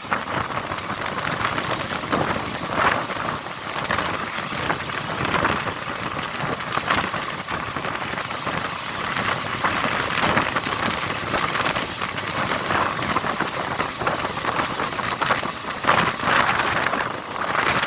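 Passenger train running past close by: the continuous rush of its wheels on the rails, with many small clicks and rattles.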